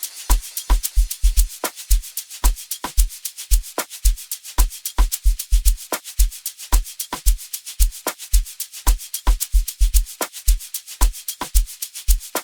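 Sgija-style amapiano drum pattern: deep kick hits under a busy, even shaker and hi-hat rhythm, with no melody or vocals.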